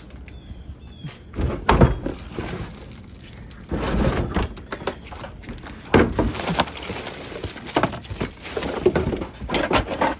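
Rummaging through plastic wheelie bins of bagged garbage and recycling: plastic bags rustling, with several knocks and clatters of containers against the bins.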